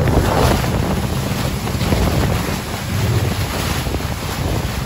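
Water rushing and splashing along a moving boat's hull as the bow throws spray, with wind buffeting the microphone.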